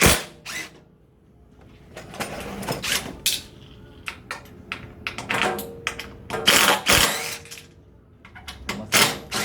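Screws being taken out of an aluminum display frame: irregular clicking and rattling of tool and metal parts in several short bursts with gaps between.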